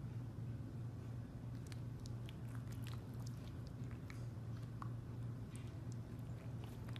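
Pug making soft, scattered wet mouth clicks and smacks while dozing, over a steady low hum.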